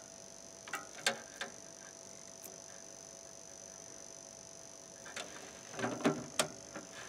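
Plastic clicks and taps from handling a handheld digital multimeter and its test leads: a few clicks about a second in, then a quick cluster of clicks and knocks near the end.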